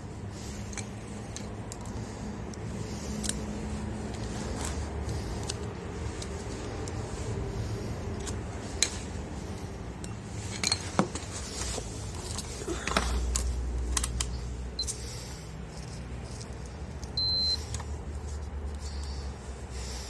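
Small clicks and knocks as a fuse is taken out of a lamp's fuse holder and handled. Near the end comes a single short, high beep, typical of a multimeter's continuity test on the fuse, which shows the fuse is good.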